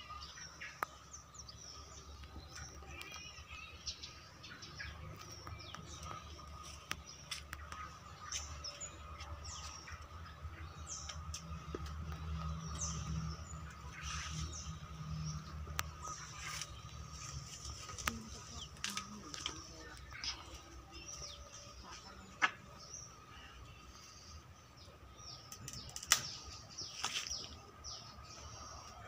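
Small birds chirping now and then, short high calls scattered throughout, over a low rumble and a faint steady high hum. Two sharp knocks in the last third are the loudest sounds.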